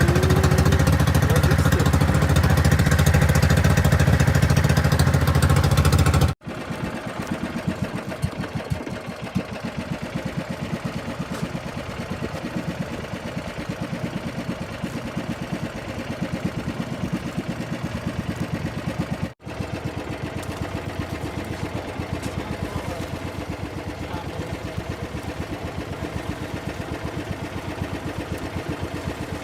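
Small single-cylinder boat engine running steadily, louder for the first six seconds. After that it is a quieter, fast, even chugging, broken by two abrupt cuts.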